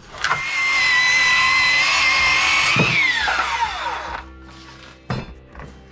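Circular saw spinning up and running at full speed through a rough-sawn board for about two and a half seconds, then winding down with a falling pitch once the trigger is released. A single thump follows about five seconds in.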